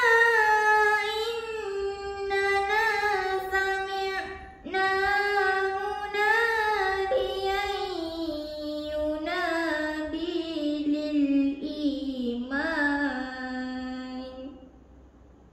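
A girl's voice reciting the Quran in melodic tilawah style, drawing out long, ornamented notes. The pitch sinks lower toward the end, and the phrase stops about a second before the end.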